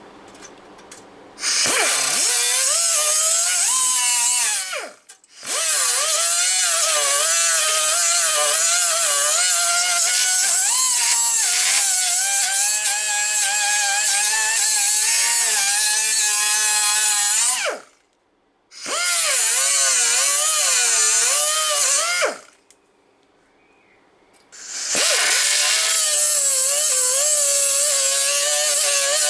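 Pneumatic die grinder with a small wire wheel brush, run in four bursts of a high whine over air hiss, the longest about twelve seconds. The pitch wavers as the spinning wire wheel is pressed onto the stainless-steel heat exchanger to scrub it down to bare metal before TIG welding.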